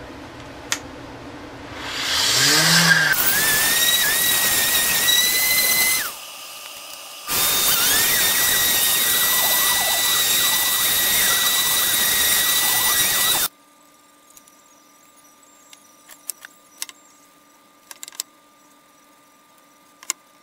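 Random orbit sander hooked to a shop-vacuum dust hose, sanding a black walnut board: it spins up with a short rising whine, runs with a steady high whine, breaks off briefly and starts again, then cuts off suddenly. Afterwards only a few faint light clicks.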